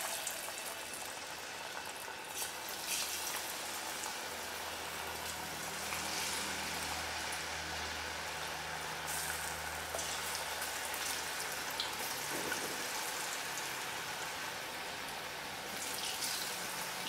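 Masala-coated potato strips deep-frying in hot oil in an aluminium kadai: steady sizzling and bubbling, with a few brief louder surges as more pieces are dropped in.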